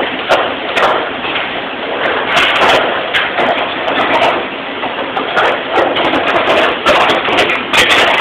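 Dishes, cutlery and plastic bus tubs clattering as they are handled and sorted in a restaurant dish room, with frequent knocks and clinks over a steady background din.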